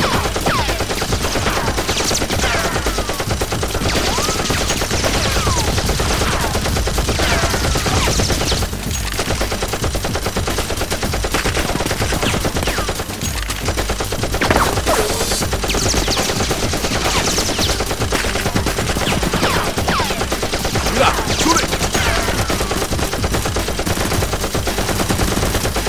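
Gunfire sound effects standing in for Nerf blasters: continuous rapid automatic fire, a dense fusillade of shots, with short falling whines now and then.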